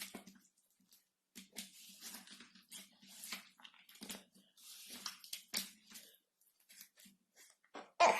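Slime being squeezed and played with by hand: irregular sticky squelches and crackles, with one louder squelch near the end.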